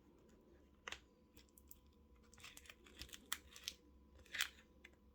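Faint crackling and clicking of a pry card working through the adhesive under a phone's cracked back glass, with small pieces of glass breaking off. One sharp click about a second in, then a cluster of small crackles and clicks a few seconds in.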